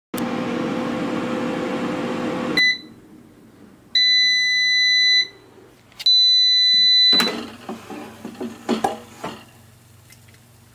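Air fryer running with a steady fan noise and hum, which cuts off a couple of seconds in with a short beep, followed by two long beeps signalling the end of the cooking cycle. A few clicks and light clatter follow as the basket is handled.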